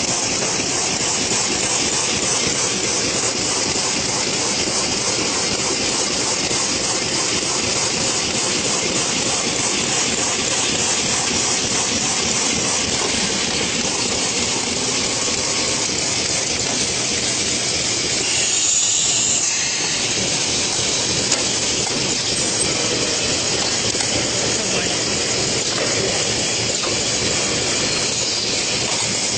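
Plastic bag slicing and cutting machine running, a steady dense mechanical noise with a strong hiss.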